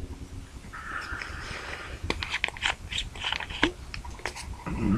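Hands handling a small plastic squeeze bottle and loose materials: a brief rustle about a second in, then a quick run of sharp clicks and crunches.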